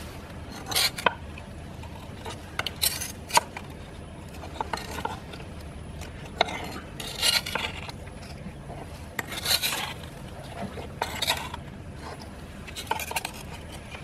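Soil, weeds and roots being dug and scooped out of a large glazed clay pot by a gloved hand: short bursts of scraping and rustling every second or two.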